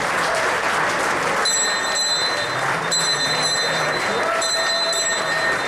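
Crowd applauding and cheering, with a few high steady tones sounding over it from about a second and a half in.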